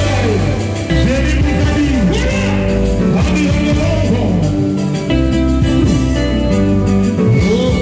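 Live band music: singing over keyboard, a strong bass line and a steady beat, with sliding melodic lines.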